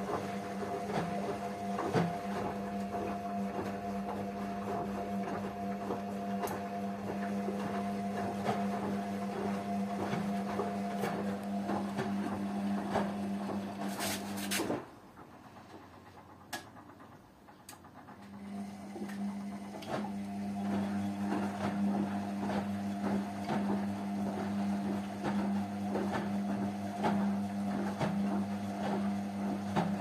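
Two front-loading washing machines, a Hotpoint Ariston and a Rainford, running a wash: a steady motor hum with many small ticks as the drums turn the laundry. About halfway the sound drops off sharply for a few seconds, then the hum comes back and builds up again.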